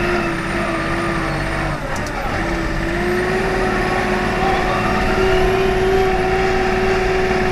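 Komatsu WA40 mini wheel loader's diesel engine running under load while pushing snow, heard from inside the cab, with a steady whine. The whine breaks off briefly about two seconds in, with a couple of clicks, then comes back.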